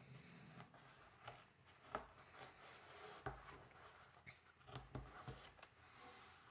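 Faint rustling and rubbing of cotton fabric being tucked under the rolled edge of a lampshade with fingers and a plastic tucking tool, with a few light taps.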